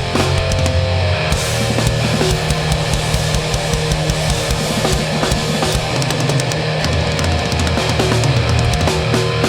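Hardcore punk band playing live, heard through the PA: distorted electric guitars, bass and fast, busy drumming, with no vocals.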